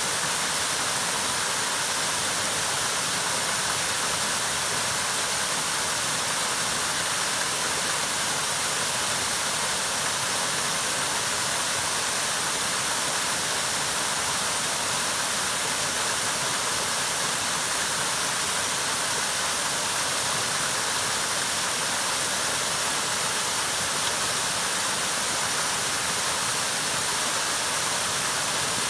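Small waterfall spilling over a rock ledge into a shallow pool: a steady, unbroken rush of falling water.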